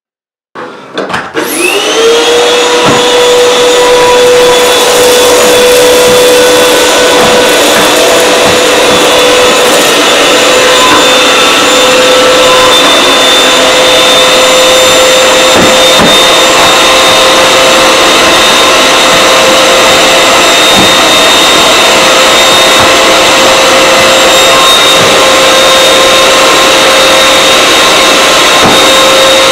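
Canister vacuum cleaner switched on about half a second in, its motor whining up in pitch to full speed within about two seconds, then running steadily as its floor head sucks debris off carpet tiles. A few sharp clicks of grit rattling up the hose.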